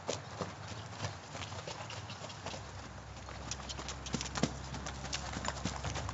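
Horse's hooves striking sand footing as it circles on the lunge at a lively gait: a quick, uneven run of hoofbeats.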